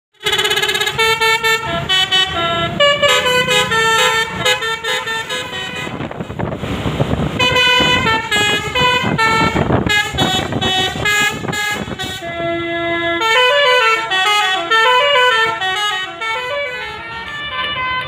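Basuri multi-tone 'telolet' horn on a tour bus playing a fast melody of horn notes that jump from pitch to pitch, with a short burst of hiss about six to seven seconds in.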